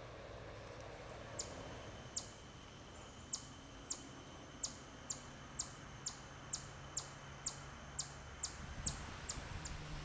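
A bird repeating a short, sharp high chirp that sweeps down in pitch, about sixteen times at roughly two a second, starting about a second and a half in. Beneath it is a faint, low steady buzz of bumblebees.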